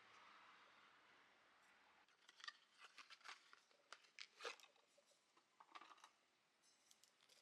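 Near silence, with a few faint, irregular clicks and crackles starting about two seconds in.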